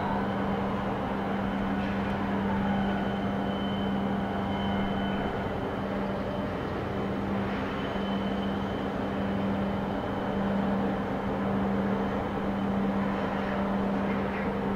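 Steady drone of harbour machinery, a strong low hum with a thin high whistle above it. A faint electric-motor whine rises near the start and falls away near the end.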